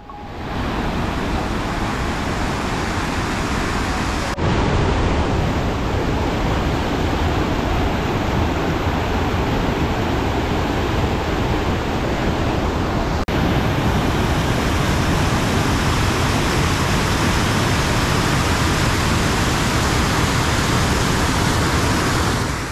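Waterfall rushing: a loud, steady, even noise of falling water. It steps up in level about four seconds in and breaks off for an instant about thirteen seconds in.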